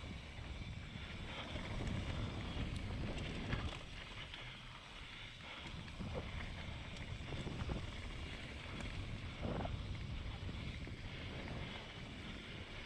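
Mountain bike descending a dirt and gravel trail: wind rushing over the camera microphone and tyres rolling on the dirt, with scattered knocks and rattles from the bike over bumps.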